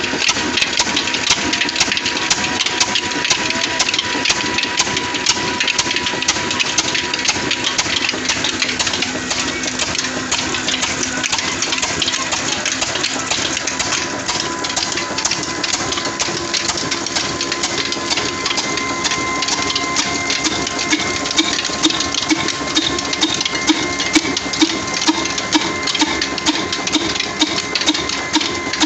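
Old 26 HP desi stationary engine running under load, belt-driving a chakki flour mill: a dense steady clatter with a steady whine over it. Slow, regular engine beats, about one and a half a second, come through more plainly in the second half.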